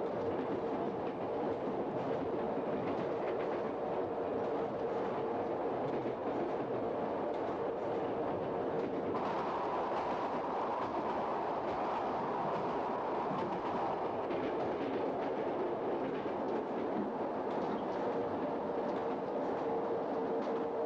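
Steady running noise of a train in motion, with a constant hum underneath and a higher hum joining about nine seconds in.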